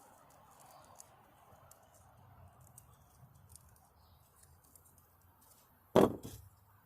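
Faint rustling with a few light clicks, then a single loud, sharp knock near the end that dies away within about half a second.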